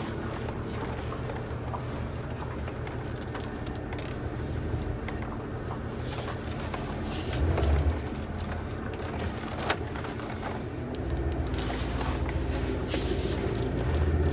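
1994 Ford F-350 pickup's engine running steadily as the truck moves off slowly, heard from inside the cab; the engine note rises and gets louder about two-thirds of the way through. It is an engine the owner fears was damaged by sugar in the fuel. A single sharp click comes a little before that.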